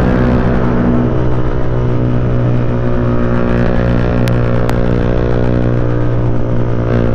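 Motorcycle with a CJ Ipoh aftermarket exhaust cruising at a steady speed, its engine note holding one even pitch, heard on board over a steady rush of wind.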